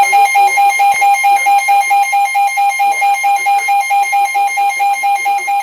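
Weather alert radio sounding its alarm: a loud electronic beep repeating rapidly, about four or five times a second, over a steady tone, with a voice faint beneath it.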